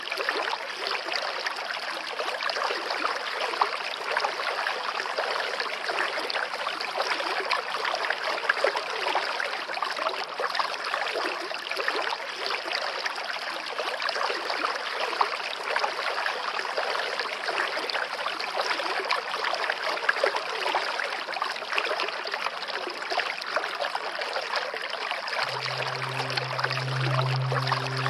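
Water of a small stream trickling and splashing steadily over rocks at a little waterfall. Near the end, a low, held musical tone comes in under the water.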